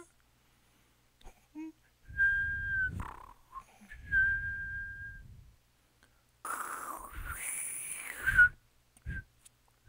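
Contemporary solo performance of whistling and breath sounds: two soft held whistled tones with airy breath noise beneath, a few small clicks, then a louder rushing, hissy breath sound with a brief whistled note that ends abruptly, separated by silences.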